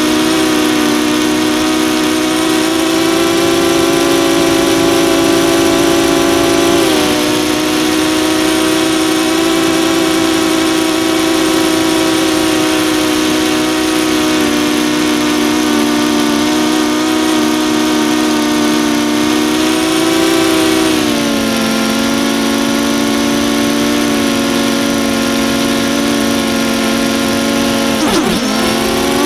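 DJI Phantom 2 quadcopter's motors and propellers humming steadily in flight, heard from a camera mounted on the drone. The pitch steps down slightly about seven seconds in and again around twenty seconds, then dips sharply and recovers near the end as the throttle changes.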